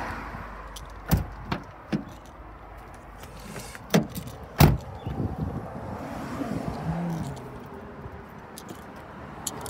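Car doors of a 2001 Holden VX Commodore SS being handled: the front door shut with a sharp knock about a second in and a couple of lighter clicks after it, then two louder clunks a little before halfway as the rear door is unlatched and opened, followed by softer handling noise.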